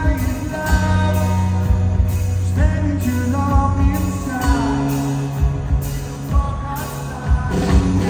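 Live rock band playing: a male lead voice sings held, sliding notes over strummed acoustic guitar, electric guitar and a steady drumbeat.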